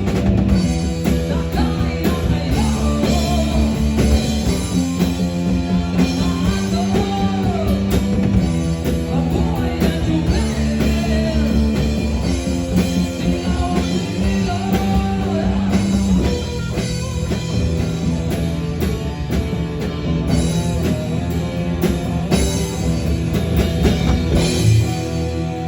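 Full-band rock music with drum kit, bass and guitars under a lead melody that slides up and down in pitch. Near the end the drums and bass drop out, leaving the guitar.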